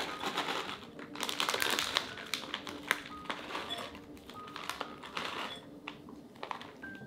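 Grated gruyère cheese pouring into a glass bowl of shredded cheddar: a dry rustle of many soft ticks, heaviest about one to two seconds in, then thinning to scattered ticks. Faint background music with occasional soft notes underneath.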